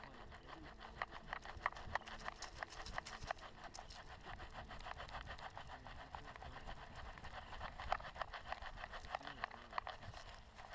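Footsteps crunching on a hiking trail, a few irregular steps a second.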